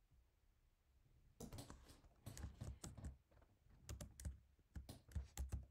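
Typing on a computer keyboard: irregular keystroke clicks that begin about a second and a half in and run in quick uneven bunches.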